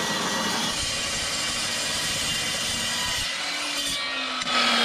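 Porter-Cable 14-inch metal-cutting dry chop saw cutting through a Grade 8 steel bolt: a steady grinding hiss of blade on steel. About three seconds in, a low tone appears and slowly falls in pitch, and the sound grows louder near the end.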